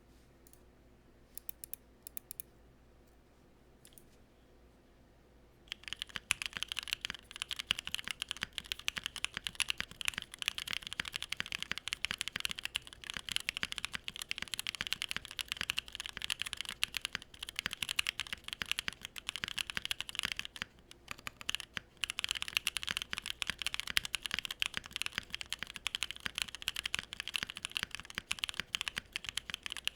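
Mechanical keyboard typing: a Bakeneko with Durock POM linear switches, their contact leafs lubed, on an aluminium plate with PBT keycaps. A few single keystrokes, then fast continuous typing from about six seconds in, with a couple of short pauses.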